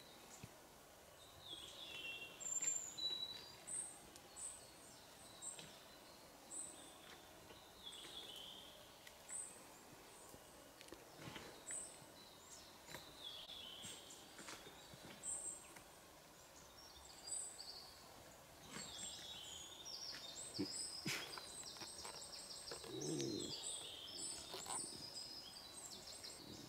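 Forest birdsong: several small birds repeating short high calls and falling phrases. Scattered light snaps and rustles come from bear cubs pawing and gnawing at dead wood on the forest floor, with a brief louder rustle about three quarters of the way through.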